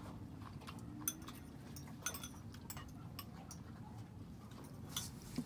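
Scattered light clicks and clinks of utensils against a pot and dishes during a meal of ramyun, at irregular moments over a steady low hum.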